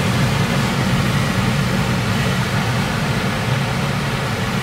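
Steady rush of air streaming over a glider's canopy, heard inside the cockpit in unpowered flight.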